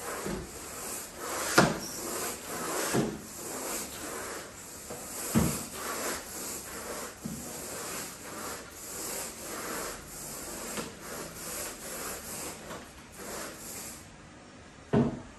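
Irregular rubbing and scraping strokes of a long-handled tool worked over carpet, with a few sharp knocks, the loudest about one and a half seconds in and near the end.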